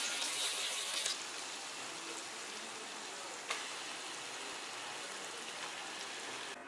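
Hot oil sizzling steadily as potato slices fry, then as raw chicken pieces cook in a steel pot. The sizzle drops a little about a second in, and there is a single light tap about halfway through.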